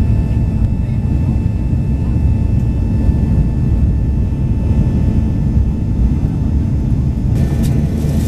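Cabin noise of a Boeing 737-800 in its climb after take-off, heard from a seat over the wing: the CFM56-7B engines' steady low rumble with faint steady whining tones. A few clicks near the end.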